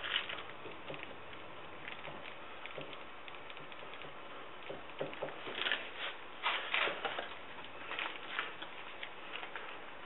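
A brush dabbing resin into wet fiberglass cloth in a mold: irregular soft sticky taps, bunched about halfway through and again shortly after, over a steady hiss.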